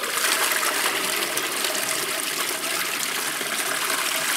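Toilet flushing: a steady rush of water pouring into the bowl and swirling down the drain.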